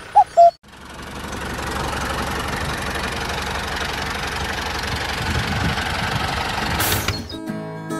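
Two short high beeps, then an engine running steadily for about seven seconds, with a constant even mechanical noise. Strummed acoustic guitar music cuts in near the end.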